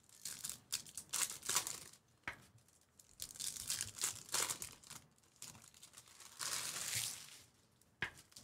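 Foil wrappers of Bowman Chrome trading-card packs crinkling and tearing as they are ripped open by hand. The sound comes in short, irregular rustles, with one longer tear about two-thirds of the way through.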